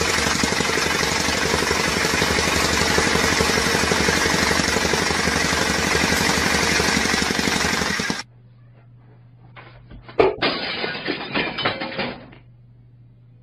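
Engine-driven tamping rammer (jumping jack compactor) running at full speed, pounding rapidly with a loud, continuous hammering racket that cuts off abruptly about eight seconds in. After that, a quieter low hum with a sharp knock and about two seconds of clattering noise.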